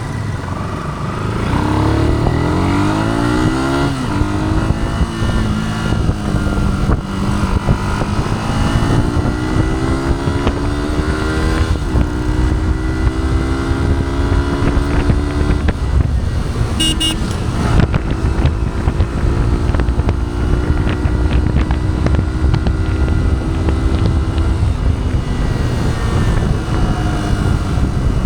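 2011 first-generation Yamaha YZF-R15 with its stock exhaust, its single-cylinder four-stroke engine pulling up through the gears: the pitch climbs, drops back at each shift, then holds steady at a cruise before easing off near the end.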